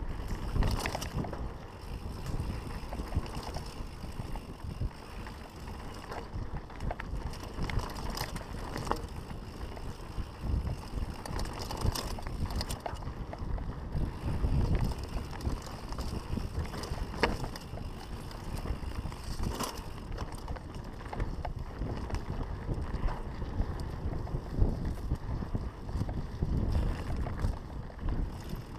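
Mountain bike rolling fast down a dirt singletrack: a steady low rumble of tyres on dirt and wind buffeting the microphone, with sharp clicks and knocks from the bike all the way through.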